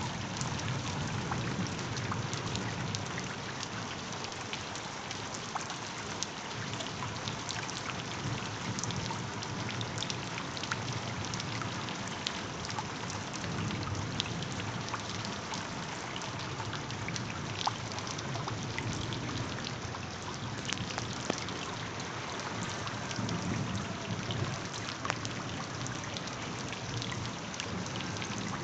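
Steady rain: an even hiss with many small drop ticks and a low rumble underneath.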